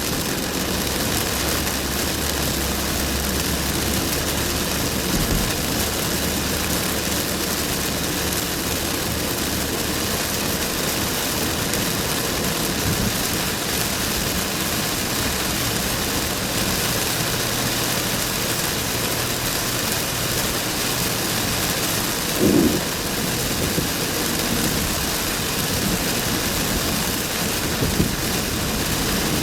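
Heavy rain and a car driving on a wet road: a steady rush of rain and tyre spray with a low engine hum underneath. There are two brief thumps, one about three quarters of the way through and one near the end.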